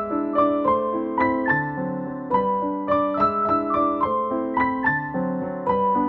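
Background music: a keyboard melody of struck notes, a few a second, over held lower notes.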